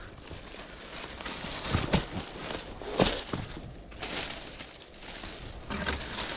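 Irregular crunching and crackling footsteps of a hiker scrambling up a steep slope, with a few louder crunches about two and three seconds in.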